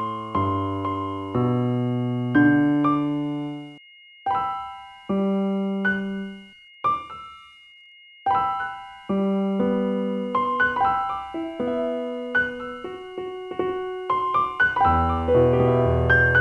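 Slow, gentle solo piano music, single notes and chords ringing and fading, with short pauses about four and seven seconds in. Two faint, steady high tones are held unbroken underneath.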